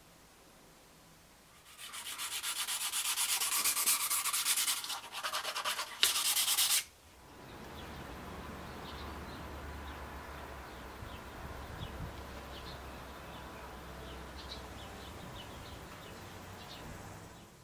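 A hand tool rasping and scraping fast against a workshop part in short spells with brief breaks, stopping abruptly about seven seconds in. A much quieter steady background with a low hum and faint high ticks follows.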